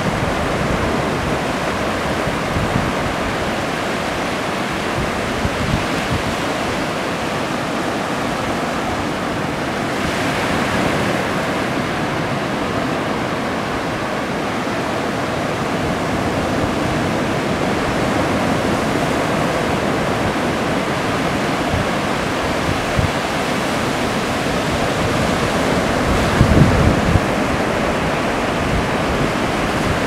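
Ocean surf breaking offshore and its foam washing up over flat sand, a steady, continuous rushing wash that swells slightly around the middle. A few low thumps come near the end.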